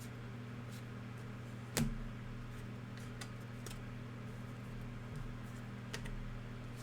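Faint clicks and ticks of trading cards being handled and flipped, with a sharper tap about two seconds in, over a steady low hum.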